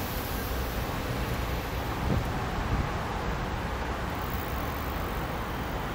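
Steady city street traffic noise: an even rumble and hiss of road vehicles, swelling slightly about two seconds in.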